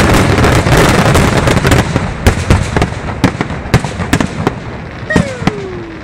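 Fireworks finale barrage: a dense run of rapid bangs and crackle that thins after about two seconds into scattered single loud reports as the volley dies down.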